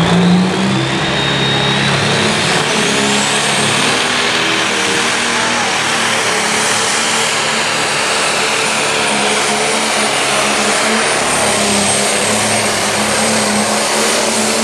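Turbocharged diesel engine of a John Deere pro stock pulling tractor running flat out as it drags the weight sled. A high turbo whistle climbs over the first few seconds and then holds steady.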